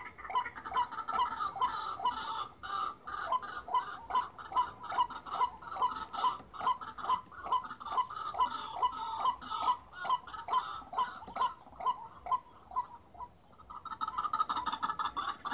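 White-breasted waterhen (ruak-ruak) calling: a long, even run of repeated harsh notes, about two a second. Near the end it breaks off briefly and turns into a denser, continuous chattering.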